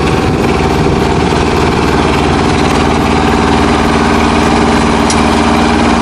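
Iseki combine harvester's engine running at a steady speed.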